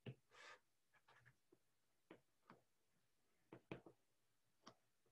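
Faint, scattered taps and clicks of a stylus on a tablet's glass screen during handwriting, with a quick cluster of three about a second in and a few more later.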